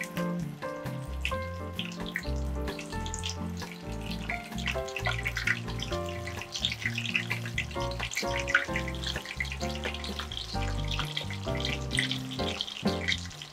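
Background music with changing bass notes, over the sizzle and crackle of corn-flour-coated shrimp frying in plenty of hot oil.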